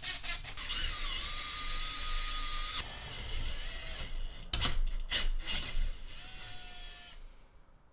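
Cordless drill turning a hole saw through a plastic tweeter bracket. The motor whines in several separate runs, the longest and steadiest lasting about two seconds, and stops shortly before the end.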